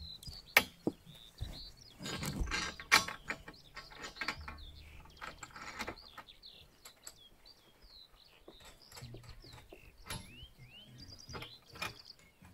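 Sharp clicks and knocks of hand tools on metal as the solar panel's angle-bracket mounting is fastened on a camping-car roof, densest in the first three seconds. Small birds chirp from about three seconds in.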